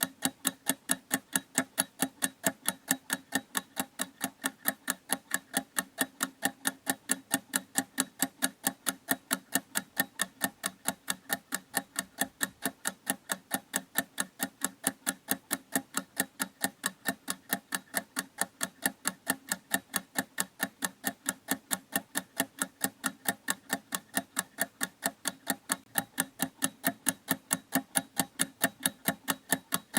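Clock ticking at a fast, even rhythm of several sharp ticks a second, without a break.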